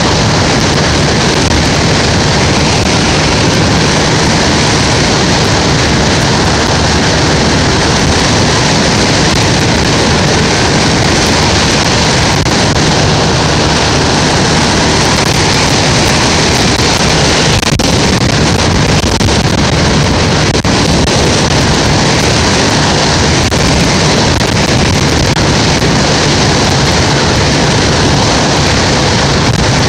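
Steady, loud wind rush on the microphone of a vehicle travelling along a road, mixed with the vehicle's running noise.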